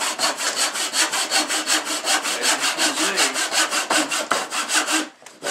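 Back saw cutting through wood in quick, even strokes, about five a second. It stops briefly near the end, then starts again.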